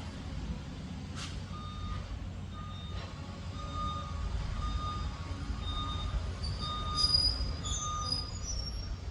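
Liebherr PR 746 crawler dozer running with a low engine rumble while its reversing alarm beeps repeatedly, roughly one to two beeps a second. A brief high screech cuts through about a second in and again near the end.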